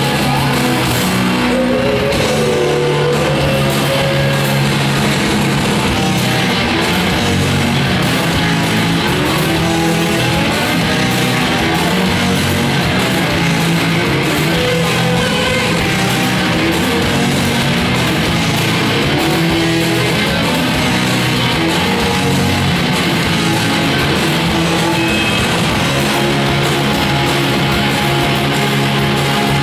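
Live garage rock band playing an instrumental passage: loud distorted electric guitars, bass and drums, heard from among the crowd.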